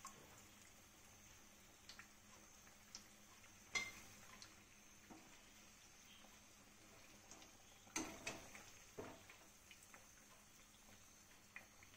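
Mostly quiet, with a few light clicks and knocks of metal tongs and a steel spatula against a frying pan as jackfruit fritters are turned in the oil. The loudest clicks come about four and eight seconds in.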